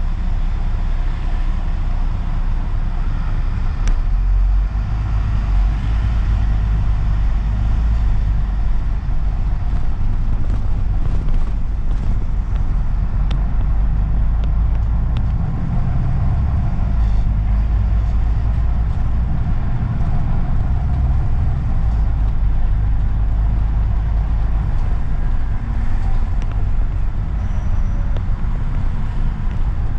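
Double-decker bus's engine and road noise heard from inside the bus: a steady low rumble that grows about four seconds in as the bus pulls away, then runs on as it drives.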